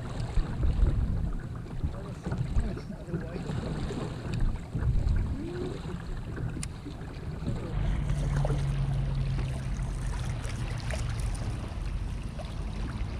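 Wind on the microphone and water moving around a kayak, with uneven low rumbling. About eight seconds in, a steadier low hum sets in, with scattered small ticks.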